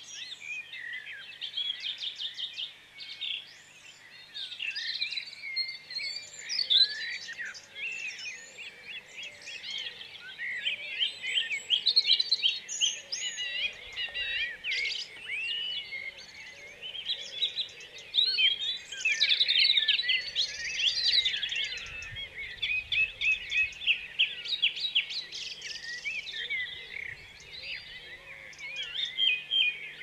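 A dense chorus of small garden songbirds: many overlapping songs, trills and quick chirps without a break.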